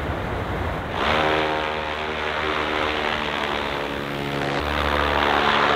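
An electric hovercraft's brushless motors and 3D-printed propellers running: a steady multi-tone propeller hum that comes in about a second in, its tone shifting about four and a half seconds in.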